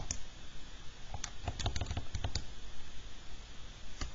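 Keys of a TI-84 Plus graphing calculator being pressed, plastic clicks: one at the start, a quick run of about eight presses in a little over a second, and another near the end, keying through the menus to a quadratic regression.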